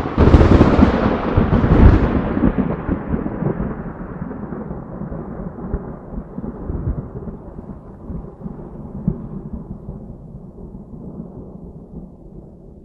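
A thunderclap: a sudden loud crack with a second loud burst about two seconds in, then a long low rumble that slowly fades away.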